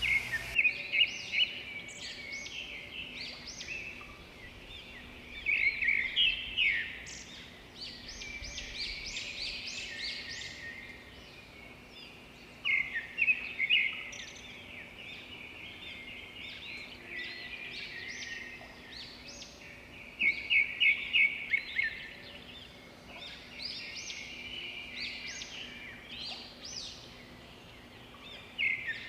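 Birds singing: a loud phrase of rapid, repeated high notes comes back about every seven seconds, with softer chirps and trills in between.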